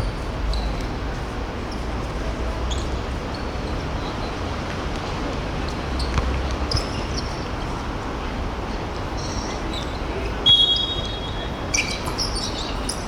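Sounds of a korfball game on an indoor court: the ball bouncing, with scattered short high squeaks, over a steady low hum of the hall.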